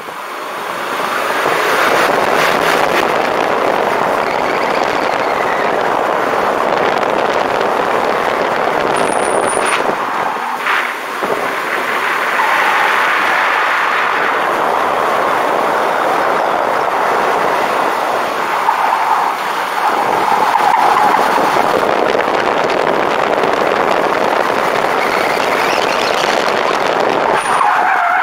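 Mercedes 190E (W201) being driven hard through an autocross course: a steady rush of engine, tyre and wind noise. A short tyre squeal comes a little past the middle and another near the end.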